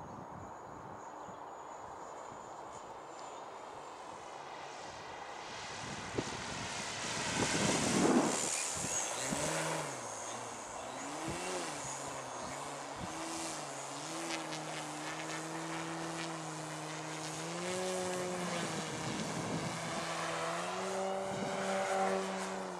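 Propeller of a 2.2 m Yak 54 radio-controlled aerobatic model plane. There is a loud rushing pass about eight seconds in, then a steady propeller hum whose pitch bends up and down and steps up twice as the throttle changes while the plane hangs nose-up in a hover.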